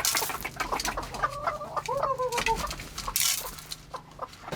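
Farm poultry calling: a quick run of short pitched calls about a second in, with small clicks and knocks around them and a brief hiss near the end.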